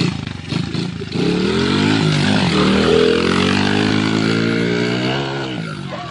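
Small dirt bike engine puttering unevenly, then revving up about a second in: its pitch climbs, holds under throttle, and eases off near the end.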